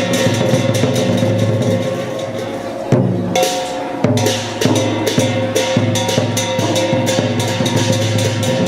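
Lion-dance percussion troupe playing the opening drumming: a fast, steady beat on drum with gongs and cymbals. The playing thins briefly about three seconds in, then picks up again.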